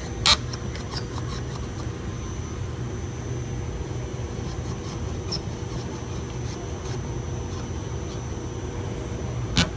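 Steady low mechanical hum with a faint high-pitched whine, broken by a sharp click about a third of a second in and another near the end, as a car door handle is being worked on.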